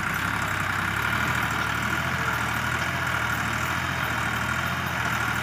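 Massey Ferguson 260 tractor's diesel engine idling steadily.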